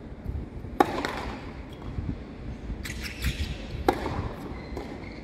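Tennis racket striking the ball on overhead smashes: two sharp, loud hits about three seconds apart, with fainter ball knocks in between.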